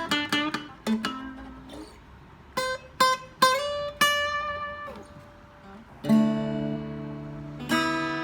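Acoustic guitar playing a blues: a quick run of picked notes, a few separate high notes that ring and fade, then a full chord struck about six seconds in and another near the end.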